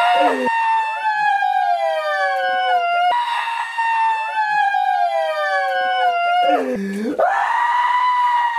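Several women wailing together: overlapping drawn-out cries that each fall in pitch, one after another, with one cry swooping low and back up near the end.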